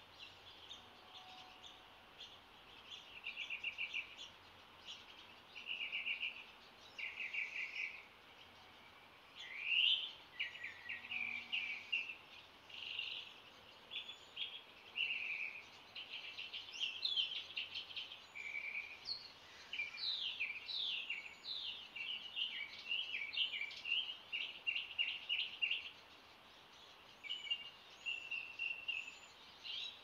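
Dawn chorus of songbirds: several birds singing at once, a steady run of quick chirps, trills and short whistled phrases, busiest a little past the middle.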